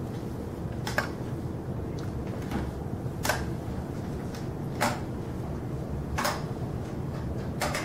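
Slow steps of a person walking on aluminium forearm crutches and a prosthetic leg across a hard tiled floor: five sharp clicks, about one every second and a half, as the crutches and feet come down, over a steady low rumble.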